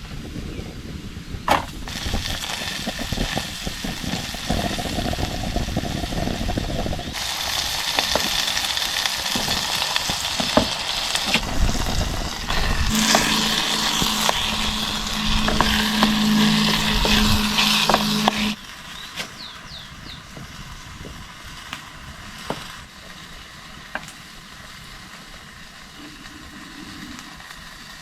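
Food sizzling in a pan over a campfire, with occasional knocks of stirring. The sizzle grows louder and brighter partway through, then cuts off abruptly about 18 seconds in, leaving a quieter background with scattered clicks.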